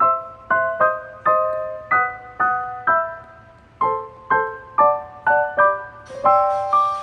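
Background piano music: a gentle melody of single notes and small chords, struck about twice a second and left to ring, with a brief high hiss near the end.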